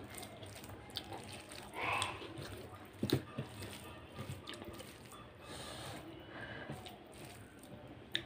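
Fingers mashing and mixing soft, wet rice congee on a steel plate: close, sticky squelches and scattered wet clicks, with one sharper click about three seconds in.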